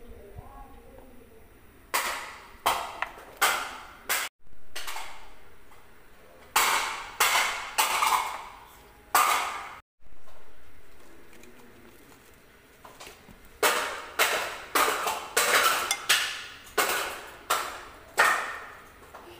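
A scoop and spoon knocking against a mixing bowl while flour is scooped in and stirred: sharp taps and clinks in three quick clusters, each fading fast.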